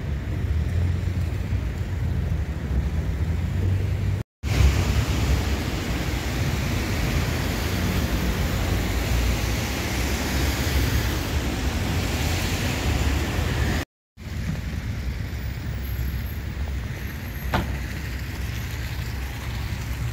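City street traffic on a wet, slushy road with a low wind rumble on the phone's microphone. It breaks twice for a moment of silence; the middle stretch carries a louder hiss.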